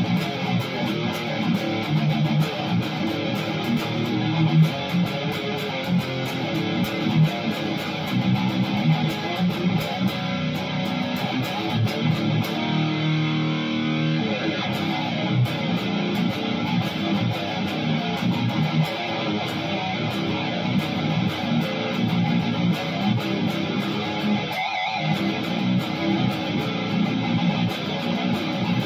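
ESP LTD F Black Metal electric guitar, tuned down to B flat, played through a Mesa Boogie Triple Rectifier amp simulation: improvised high-gain death-metal rhythm riffing. A chord rings out for a moment about halfway through, and the playing stops briefly about 25 seconds in.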